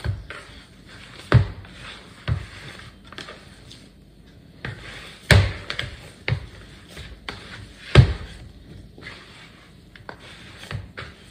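Bare hands kneading and squishing a raw meatloaf mixture of ground beef, sausage, eggs and crushed saltine crackers in a plastic mixing bowl. Soft wet squishing runs under irregular dull thumps, the loudest about five and eight seconds in.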